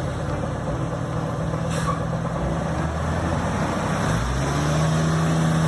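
Large vehicle's engine running steadily, the pitch of its note stepping up about four seconds in.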